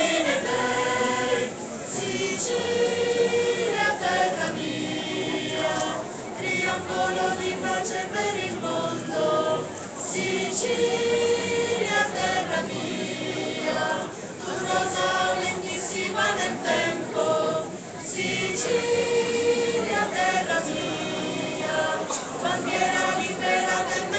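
A mixed choir of men's and women's voices singing together in phrases of held notes, with brief breaths between phrases.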